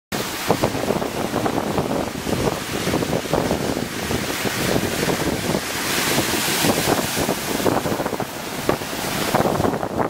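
Surf breaking and washing on a rocky shore, with wind buffeting the microphone. The wash swells loudest a little past the middle.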